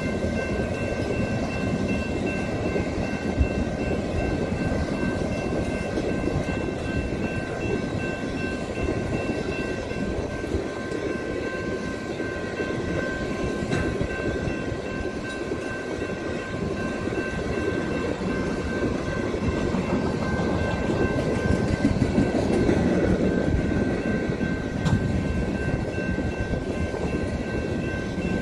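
Freight train of empty intermodal well cars rolling past: a steady rumble of wheels on rail, with a steady high ringing held over it.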